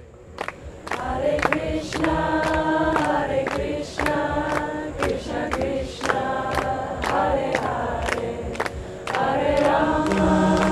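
Intro music: a group of voices singing held notes in chorus, the chord changing every second or so, over a steady beat of about two strikes a second.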